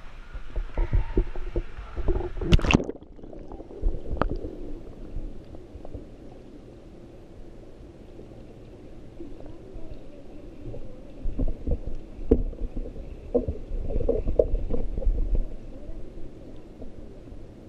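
A camera going into a swimming pool with a splash about two and a half seconds in, then muffled underwater sound: low rumbling and gurgling of water, with a few knocks and a louder stretch of water movement near the end.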